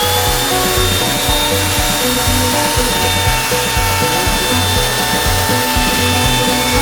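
Background music with a steady beat, over the steady high whine of a power tool's motor running at speed.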